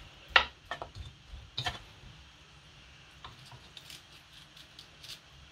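A kitchen knife cutting raw meat held over a cooking pot, with a few sharp clicks and light knocks as the blade and the cut pieces hit the pot. The two loudest come about a third of a second and a second and a half in.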